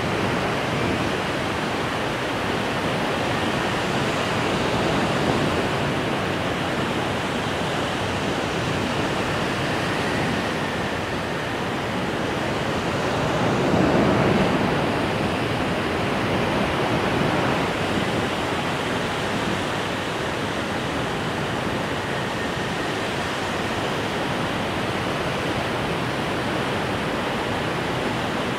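Ocean surf breaking on a beach: a steady rush of noise that swells once about fourteen seconds in.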